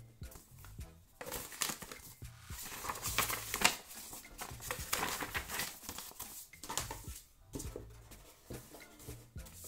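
Handling of paper and plastic: an instruction leaflet rustling and a clear plastic bag of small plastic pegs crinkling, in irregular bursts.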